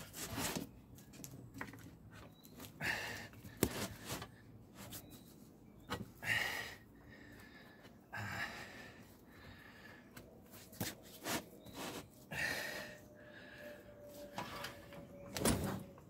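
Tyre being worked by hand on an alloy wheel rim: scattered knocks and thunks with short scraping, creaking sounds of rubber pressed against the rim.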